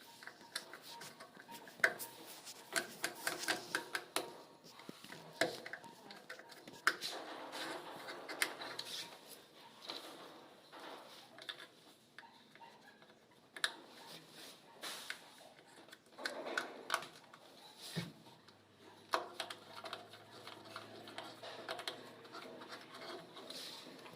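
Irregular rubbing and scraping with scattered clicks and light knocks: hands and tools working on a gas hob and its countertop cutout. A faint low hum joins about three-quarters of the way through.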